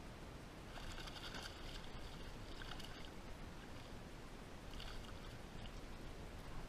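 Faint sounds of a kayak on the water: a steady low hiss with three short, brighter bursts, about a second in, near three seconds and near five seconds.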